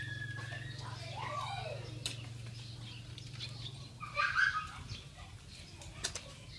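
A low steady hum that stops about four seconds in, with short bird calls and a few sharp clicks.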